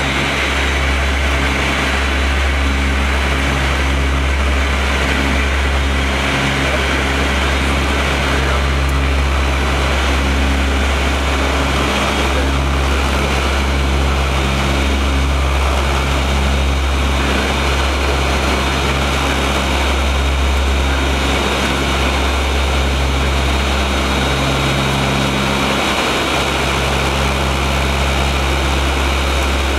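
Four Allison 501 turboprop engines of a Lockheed L-188 Electra, heard from the cockpit in the climb after takeoff. A steady, loud, deep propeller drone with a slow throbbing beat, over a high turbine whine.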